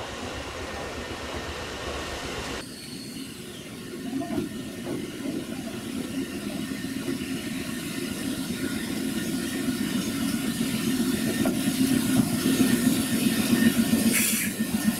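Eizan Electric Railway 700-series single-car electric train approaching and passing close, its motor and wheel running noise growing steadily louder. A few sharp wheel clacks over the rail joints come near the end.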